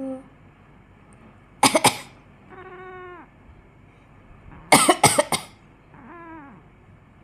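A person coughs in two short fits, and each time a cat answers with a short falling meow, which the owner takes for anger at the coughing. The coughs are the loudest sounds.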